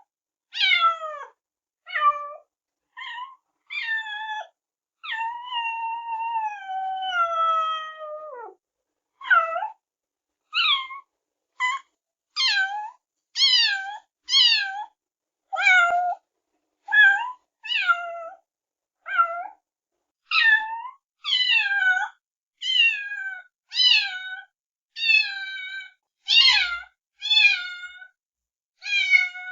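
Kitten meowing over and over in short, high calls that fall in pitch, about one a second. One call about five seconds in is drawn out for over three seconds, sliding slowly downward.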